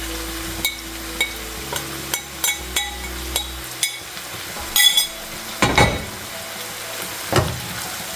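Fried mola fish and onion-tomato masala sizzling steadily in a frying pan while a spatula stirs it, clinking and scraping against the pan again and again. The loudest clatter comes about five seconds in, followed by two heavier knocks.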